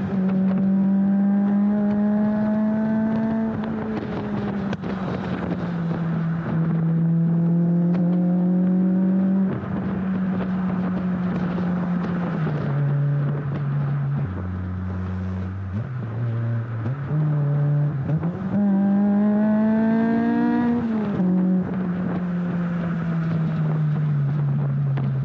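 Exhaust of a Honda K20 four-cylinder engine swapped into a Civic EJ9, heard while driving. The engine note holds or sags slowly and steps down sharply several times. About three-quarters through, it climbs for a couple of seconds, then drops suddenly.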